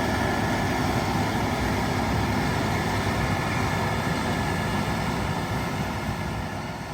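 Case IH 6160 Axial-Flow combine running under load while harvesting wheat: a steady drone of its 8.7-litre diesel engine and threshing machinery, with several steady whining tones. The sound fades out gradually over the last two seconds.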